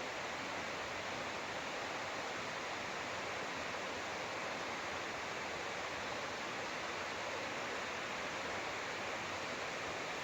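Steady, even rush of a mountain stream's running water.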